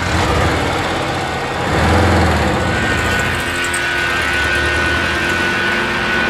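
A steady, engine-like low rumble within an industrial electronic track, swelling about two seconds in, with a thin high tone entering about a second later and holding.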